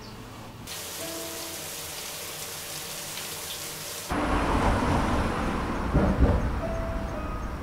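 Ambient sound effects: a steady rain-like hiss that cuts off about four seconds in, where it is replaced by a louder, low rumbling outdoor noise. A brief rustle of tall grass comes about six seconds in.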